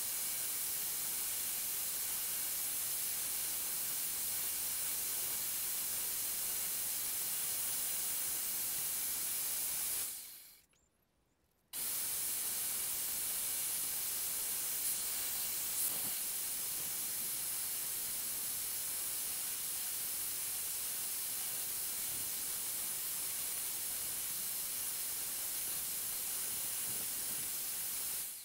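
Power drill running a cleaning wheel at a steady speed, a continuous hissing whir as it scrubs a small rusty lamp part. The sound drops away briefly about ten seconds in, then resumes.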